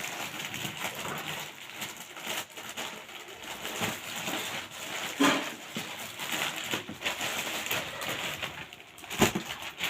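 Rustling and handling of packaging as a box is opened, with a sharp knock about nine seconds in.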